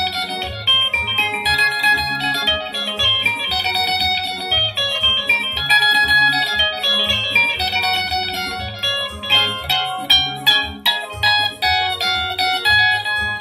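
Soukous-style jam: an electric guitar picks quick, bright melodic lines of rapidly changing notes over an electronic keyboard part with a steadily pulsing bass line.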